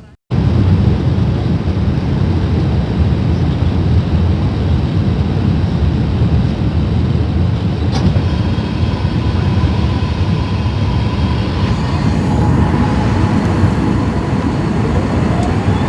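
Steady, loud low roar inside the cabin of an Airbus A380 in flight: engine and airflow noise during the approach. A faint steady tone joins about halfway through, and a rising whine comes in near the end.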